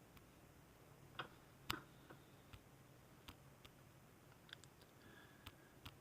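A dozen or so faint, irregularly spaced clicks of a computer mouse against a quiet room, with a louder pair about a second and a half in.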